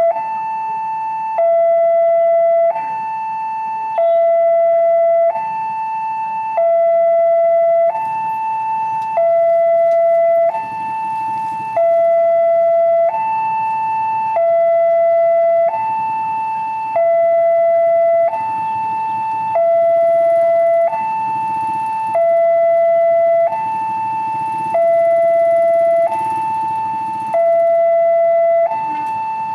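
Railway level-crossing warning alarm: an electronic two-tone signal, a higher and a lower tone alternating, each held a little over a second, repeating evenly. It warns that a train is approaching the closed crossing. Faint engine and traffic rumble sits underneath.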